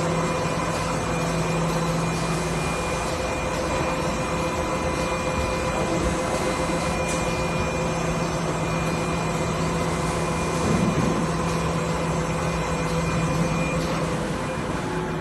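Steady hum of a running bakery production line, from the cake batter depositor, steel conveyor belt and tunnel oven, with a few steady tones in it. The lowest tone drops out briefly near the start and stops shortly before the end.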